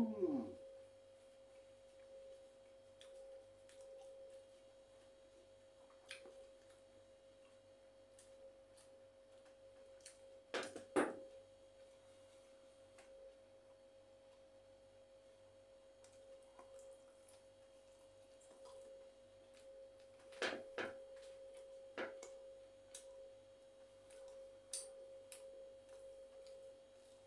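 Quiet eating by hand: a few short smacks and clicks, the loudest about eleven seconds in and again around twenty-one seconds, over a faint steady single-pitched whine.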